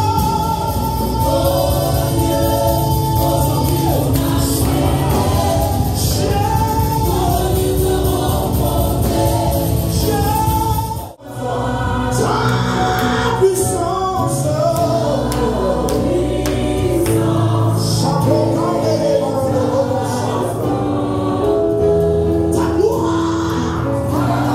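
Gospel praise music: a choir singing over instrumental backing. It breaks off for a moment about eleven seconds in.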